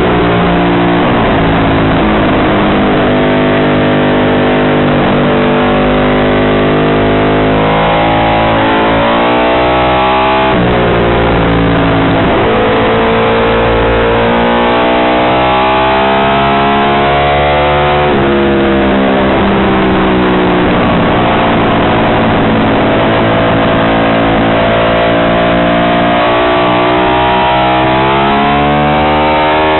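Ducati 750 Imola racer's short-stroke bevel-drive 90° V-twin at high revs on track, heard from onboard. The engine note falls and climbs with the throttle through corners, jumping sharply in pitch at gear changes about three times.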